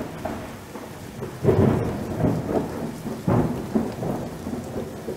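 Thunderstorm: rain falling steadily, with two rolls of thunder, one about a second and a half in and a louder-edged one a little past three seconds, each rumbling away.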